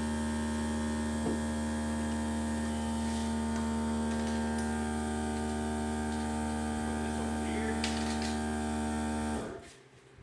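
Air compressor motor running with a steady, deep hum, then cutting off abruptly near the end. This is typical of the tank refilling after the brad nailer has been used. A few light knocks from handling wood sound over it.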